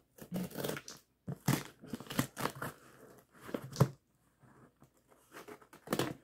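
Packing tape on a cardboard box being slit open along the lid seam with a blade, making a run of irregular scraping, tearing strokes, with a lull about four seconds in before more strokes near the end.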